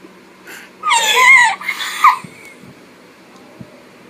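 A very high-pitched, wavering wail like a crying voice: one long cry about a second in, then a short one at about two seconds.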